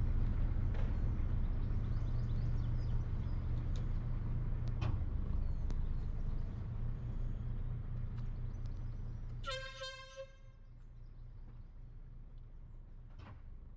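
A boat engine running steadily with a low hum. About nine and a half seconds in, a horn gives a single toot of about a second, and then the engine sound drops away to a quieter hum.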